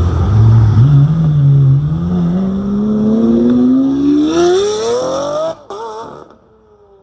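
Lamborghini Aventador SV's naturally aspirated V12 through a Gintani exhaust, accelerating hard. Its note climbs steadily for about five seconds, then cuts off sharply, leaving a brief warble and a faint, fading tone.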